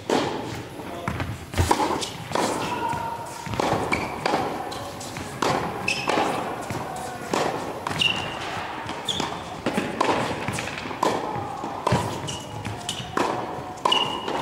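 Tennis balls struck by a racket and bouncing on an indoor court, a sharp hit about once a second, each followed by the echo of a large hall.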